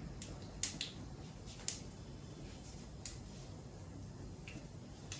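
Mustard seeds popping now and then in hot ghee and oil at the start of a tadka: a few scattered sharp pops, the two clearest about a second apart early on.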